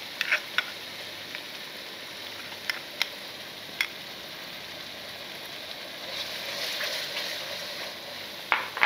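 Spice paste sizzling in hot oil in an aluminium wok, with a few sharp clicks of a spatula scraping chili paste from a bowl and knocking the pan. The sizzling grows louder for a couple of seconds near the end as the fresh red chili paste is stirred into the frying spices.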